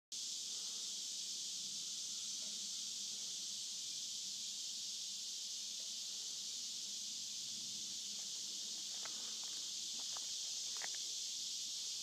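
Steady, high-pitched chorus of insects calling without a break. A few faint short sounds come about nine to eleven seconds in.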